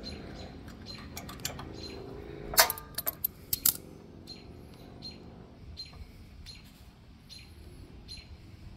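A quick run of sharp metallic clicks and clatters about two and a half to four seconds in, from pliers and the fuel line clamp being worked at the mini-bike's carburetor. After that a small bird chirps repeatedly, two or three times a second.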